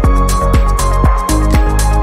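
Background music with a steady, regular beat under sustained notes.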